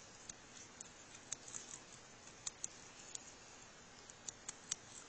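Sugar glider chewing a cockroach: faint, irregular sharp clicks as its teeth crunch through the roach's shell.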